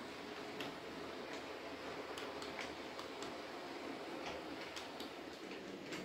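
H0 scale model train coaches rolling along the track: a faint, steady running noise with irregular light clicks from the wheels passing over rail joints.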